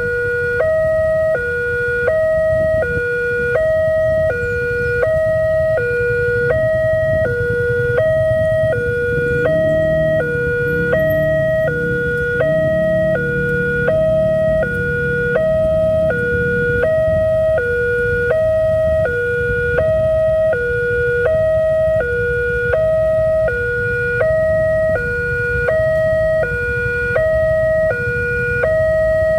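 Railway level-crossing warning alarm sounding a steady two-tone electronic signal that alternates between a higher and a lower note, each a little over half a second long, warning that a train is approaching. A low rumble swells and fades partway through.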